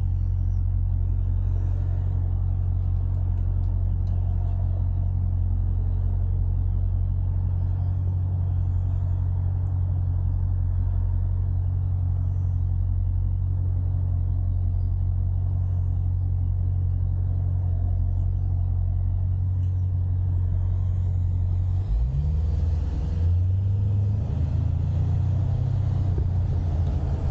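2022 Dodge Durango SRT 392's 6.4-litre HEMI V8 running at a steady low drone through its Stainless Works exhaust while the truck cruises. A little past 20 seconds in, the engine note climbs and wavers for a few seconds as it picks up throttle.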